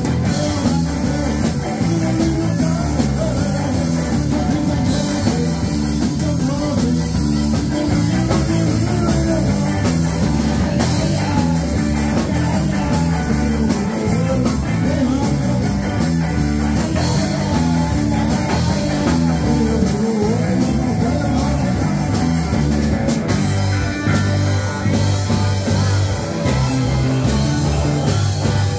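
Live rock band playing: electric guitars, bass and drum kit, with a singer, heard loud and close.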